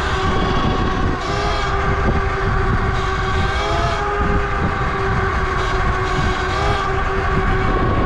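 Falcon Pro 79 electric dirt bike's motor whining steadily while riding, its pitch rising and falling a little with speed, over a heavy low rumble of wind on the microphone.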